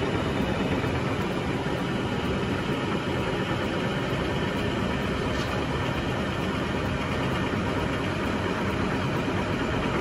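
Powered honey extractor spinning its frames of honeycomb, the motor and drum running with a steady, even whir.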